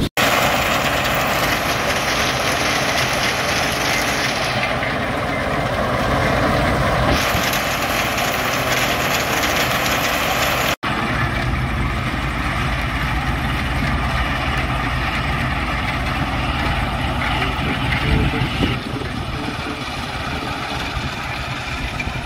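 Stone crusher machine running: a steady, dense mechanical noise of rock being crushed, with a low engine hum underneath. The sound drops out for an instant about eleven seconds in, then carries on.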